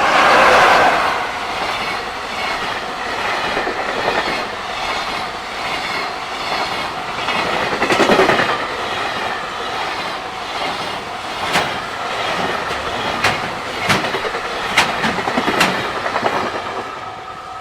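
Freight train rolling past a level crossing at close range: a loud rush of passing wagons, with a surge about half a second in and another around eight seconds, and sharp clickety-clack of the wheels over rail joints in the last few seconds. It fades near the end as the train clears the crossing.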